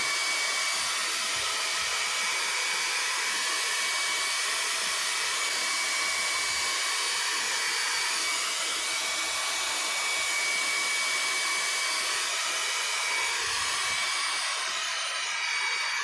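A small handheld hair dryer running steadily at its maximum heat, blowing air onto a phone screen, with a thin steady high whine over the hiss of the airflow.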